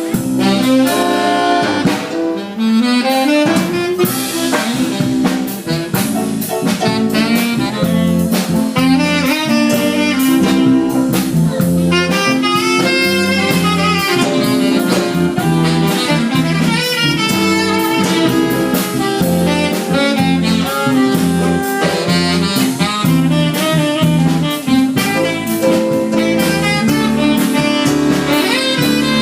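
Band music: a saxophone plays the melody over a drum kit and band accompaniment.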